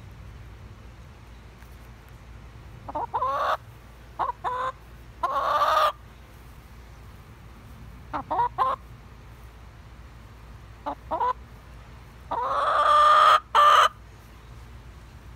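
Chicken calling: short groups of clucks every second or two, ending with a longer, louder drawn-out call near the end.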